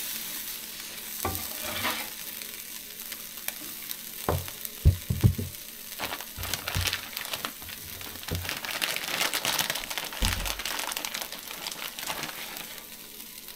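Food sizzling on a Blackstone flat-top griddle, a steady hiss, with a cluster of sharp knocks about four to five and a half seconds in and a few scattered taps.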